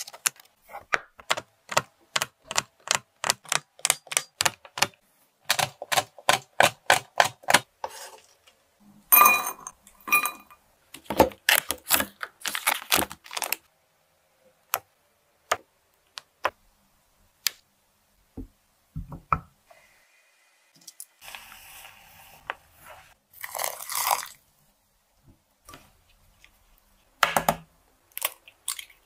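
Close-up food preparation sounds: a quick run of sharp snaps and clicks as a bar of dark chocolate is broken up, then scattered knocks and a stretch of scraping as a block of butter is cut with a cleaver. There is a single dull thump near the end.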